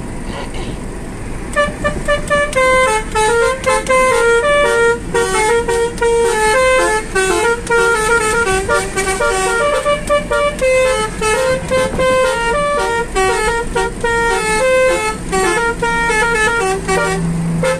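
Basuri musical air horns fitted to a car playing a quick melody note by note, driven from a melodica-style keyboard controller. The tune starts about a second and a half in, after a short stretch of car noise.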